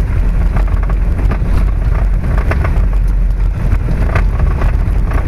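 Velomobile rolling along an unpaved gravel trail: a steady, loud rumble inside the shell with a running patter of small ticks from the tyres on the loose surface.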